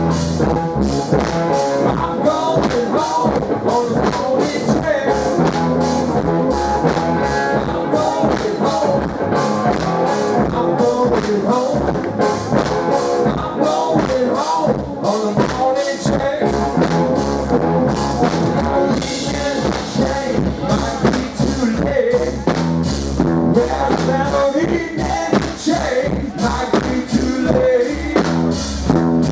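Live blues-rock band playing with a steady drum-kit beat, carried by electric slide guitar.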